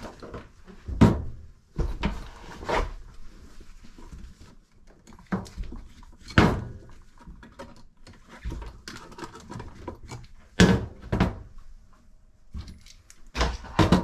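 Handling noise of an old GFCI outlet being worked out of a wall electrical box and its wires pulled free by gloved hands: scattered sharp knocks and clicks with rustling between them.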